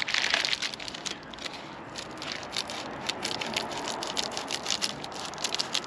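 Reflective foil bubble insulation crinkling and crackling as it is pressed against a car window and snipped along its edge with scissors, in many short crackles.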